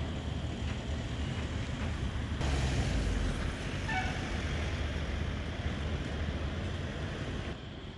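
Steady outdoor rumble of road traffic and wind buffeting the microphone, swelling louder about two and a half seconds in, with a brief high tone near the middle.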